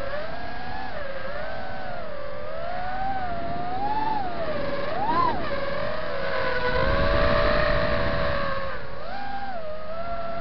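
FPV quadcopter motors and propellers whining in flight, the pitch rising and falling with each throttle change. A louder rushing noise comes in around seven seconds in.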